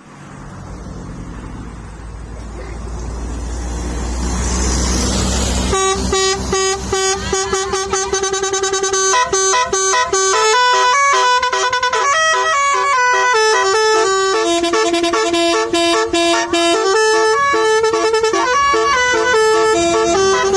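Basuri telolet multi-tone air horn playing a quick, loud tune of changing notes, starting about six seconds in. Before it, a low rumble and a rising hiss.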